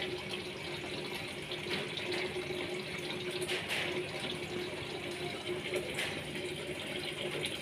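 Aquarium water running steadily, a continuous trickling and splashing as from a filter return or overflow, with a faint steady pump hum underneath.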